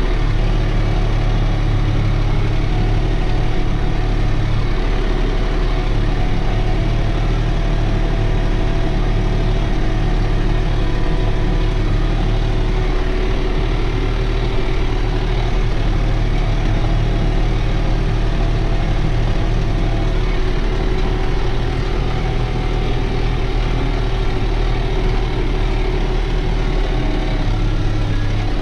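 New Holland TT4.65 tractor's diesel engine running steadily under load, pulling a mounted plough through the field, heard from inside the cab as a continuous low drone.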